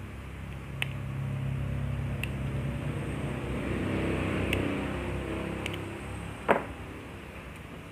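A motor vehicle's low engine hum swells and fades over several seconds, as when it passes by. A few light clicks sound over it, with one sharp click about six and a half seconds in.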